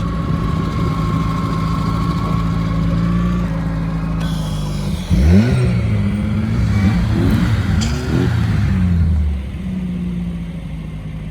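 Off-road vehicle engine idling with a steady high whine over it that stops a few seconds in. About five seconds in the engine is revved hard, rising and falling for several seconds during a stuck-vehicle recovery, then drops back near the end.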